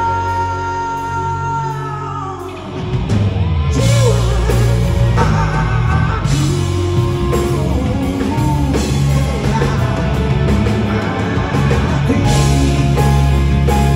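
Live rock band playing with a male lead singer: he holds a long note that falls away about two seconds in, then the full band with drums, electric guitars and bass comes in louder while he keeps singing.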